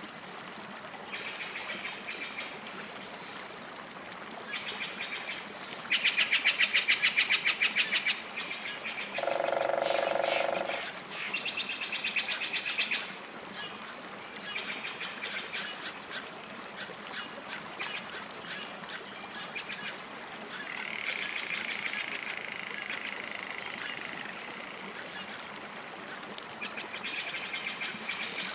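Animal calls: bursts of fast, high-pitched rattling trills repeating throughout, loudest about six seconds in, with a short honk-like call about ten seconds in.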